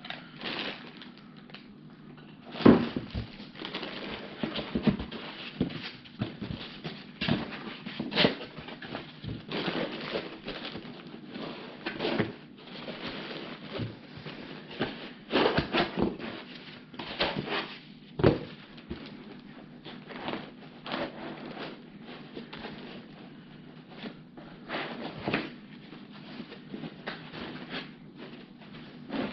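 Clear plastic parts bags crinkling and rustling as they are handled and pulled out of foam packing in a cardboard box, with scattered knocks; the loudest are thumps a little under 3 seconds in and about 18 seconds in.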